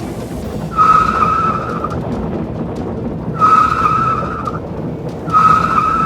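A vehicle horn sounds three long, high, steady beeps, each a little over a second, over a continuous running vehicle noise.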